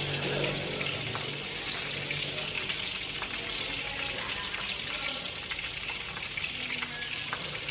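Chili-marinated climbing perch frying in oil in a nonstick pan: a steady sizzle with fine crackles.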